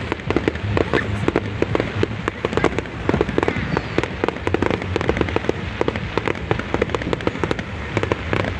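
Fireworks display popping and crackling: a dense, unbroken run of sharp pops, many a second.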